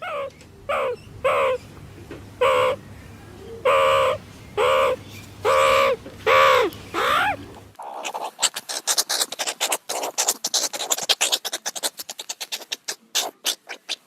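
A wild animal giving a series of about nine short calls, each falling in pitch, then an abrupt cut to a fast run of clicking chatter from a different recording.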